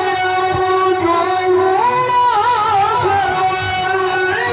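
A man's amplified voice chanting melodic Quran recitation (tilawah): a long held note, then about two seconds in the pitch rises into quick wavering ornaments.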